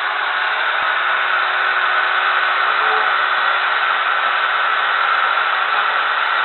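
Chainsaw running steadily at full speed, a loud, even whir with a constant pitch throughout.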